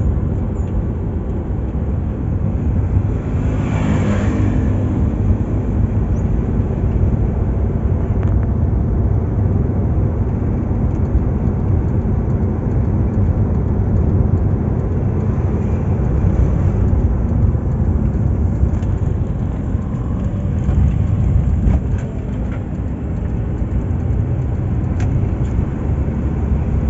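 Steady low rumble of road-vehicle noise. About four seconds in, a brief louder swell rises and fades.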